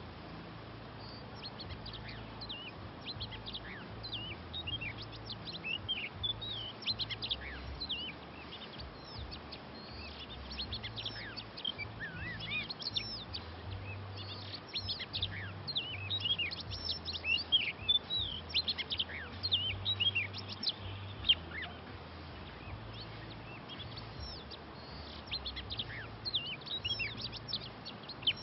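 Oriental magpie-robins calling and singing: a continual run of short, high chirps and quick whistled notes.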